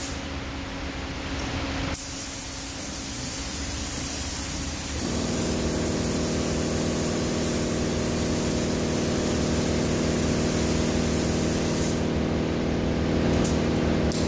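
Air-fed paint spray gun hissing as paint is sprayed onto a bus's lower body panel. About five seconds in, a steady mechanical hum with several pitches starts and continues underneath.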